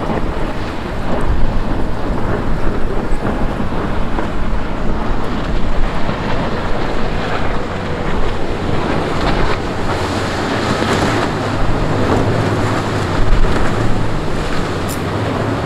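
Wind buffeting the microphone over the wash of surf and boat wake, with the low drone of a center-console boat's twin Yamaha 300 outboard motors, which grows stronger past the middle as the boat runs by.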